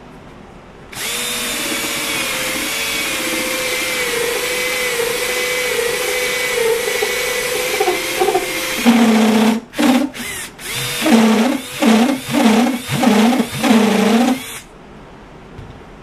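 Cordless drill boring out the inside of a polyurethane sway bar bushing with a 7/8-inch bit. It starts about a second in and runs steadily with a whine for about eight seconds, then goes in short on-off spurts before stopping near the end.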